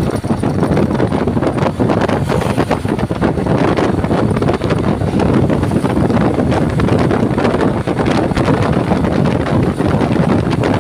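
Loud, steady wind buffeting on the microphone over the low rumble of road traffic, with no horn sounding.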